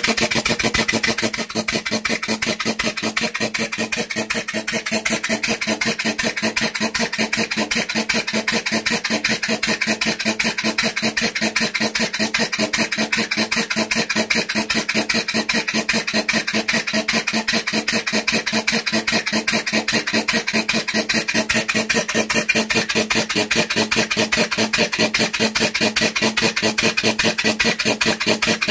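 Briggs & Stratton engine converted to a steam engine, running on compressed air in place of steam: a rapid, even run of air-exhaust puffs and mechanical clatter at a steady speed.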